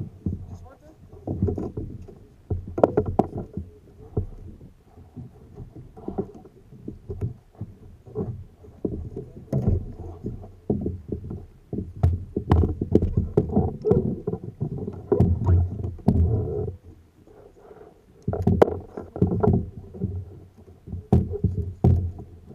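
Water splashing and sloshing against a kayak in irregular surges, with sharp knocks and taps on the hull.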